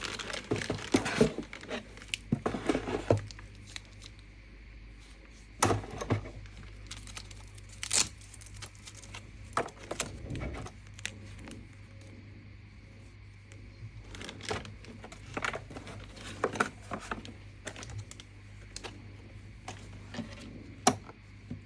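Packaging being handled during an unboxing: a spell of crinkling and rustling wrapping over the first few seconds, then scattered sharp clicks, knocks and short rustles.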